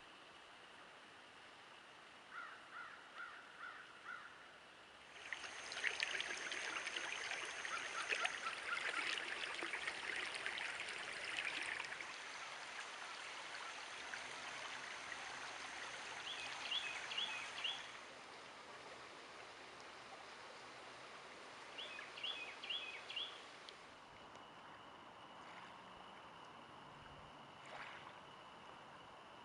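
Outdoor nature sounds: a steady rush of running water with birds calling over it in short runs of about four quick notes. The water is loudest from about five to twelve seconds in.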